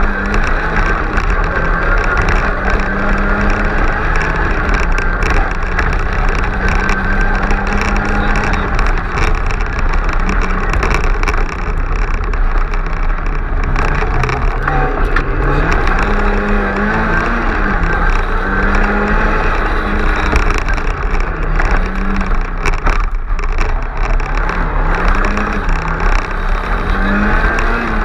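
Mk2 Ford Escort rally car's engine heard from inside the cabin, driven hard: the revs hold high for the first several seconds, then climb and drop again and again through the second half as the car brakes, changes gear and accelerates through corners.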